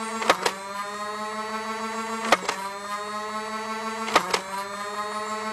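Nerf Elite Demolisher's motorised flywheels spinning with a steady whine while three darts are fired about two seconds apart. Each shot is a quick double click, and the whine dips in pitch after each shot and then climbs back up.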